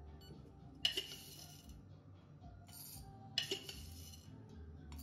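Two sharp clinks with a brief ring, about two and a half seconds apart, over faint background music.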